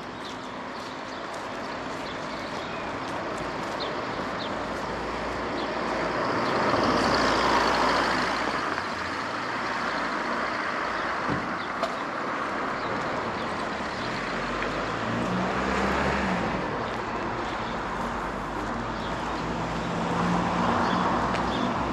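Street traffic: motor vehicles passing one after another, the noise rising and fading three times, with a low engine hum in the last two passes.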